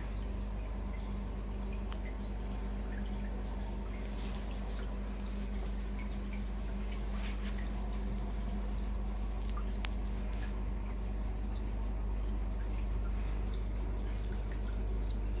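Reef aquarium equipment running: a steady low pump hum with water trickling and dripping, scattered small drips throughout.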